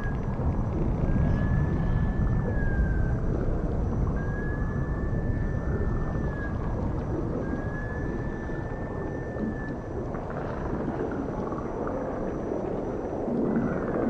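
Underwater cetacean calls: three long, level, high whistle-like calls, each about two seconds and bending at the ends, over a steady low rumble of ocean noise.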